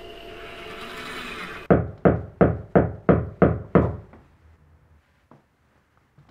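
A hammer driving a nail into a wall with seven sharp, even blows, about three a second, then a few faint taps. Before the blows, a steady machine hum cuts off suddenly.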